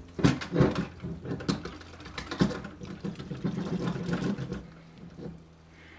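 Liquid-cooler radiator shaken upside down by hand: coolant and trapped air sloshing inside, with irregular knocks and rustles of handling, easing off in the last second. Under it runs the cooler's pump with a steady low hum; the shaking works air bubbles out of the part-filled loop.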